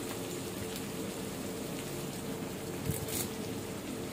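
Chopped onions sizzling in hot oil in a stainless steel kadai: a steady frying hiss, with a faint steady hum underneath.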